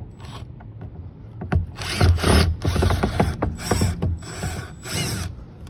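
Hand ratchet tool clicking in about six short bursts, backing out a Torx screw in the car's interior trim.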